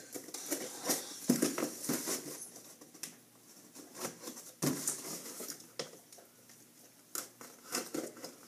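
A small knife blade cutting through packing tape on a cardboard box: irregular scratchy strokes and taps of the blade against tape and cardboard.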